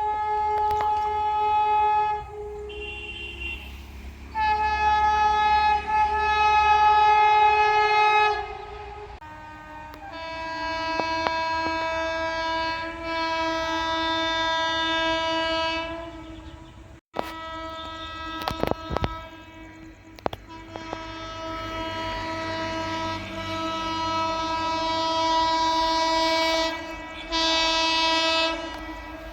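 Indian Railways locomotive horns sounding a series of long, steady blasts from more than one train, the pitch of the horn changing between blasts. A brief break in the middle holds a few sharp clicks.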